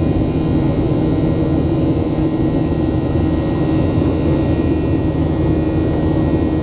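Cabin noise inside a Boeing 737-800 in flight: a steady drone from the CFM56 jet engines and the rushing air outside the fuselage, with a few thin steady tones on top.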